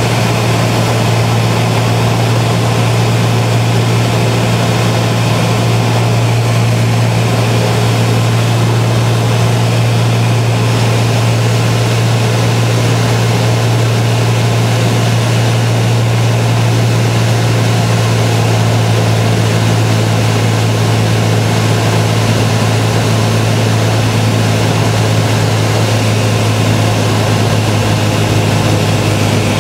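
Cessna 206's six-cylinder piston engine and propeller droning steadily in flight, heard from inside the cabin as a loud, even low hum.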